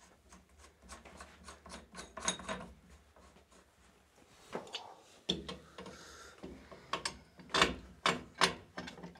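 A tool scraping and clicking on the threaded fittings of an old household water filter as it is worked loose from the pipe, in irregular strokes, with the loudest knocks near the end.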